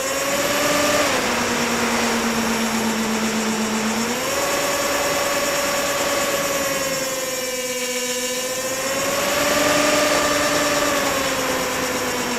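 Electric motor and propeller of a HobbyZone Firebird Stratos RC plane whining in flight, heard close up from a camera mounted on the plane, over a steady rush of wind. Its pitch steps down about a second in, back up about four seconds in, and sways up and down again later.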